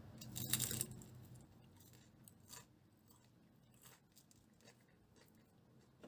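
A brief rustle of something being handled, then a few faint, scattered light clicks and taps.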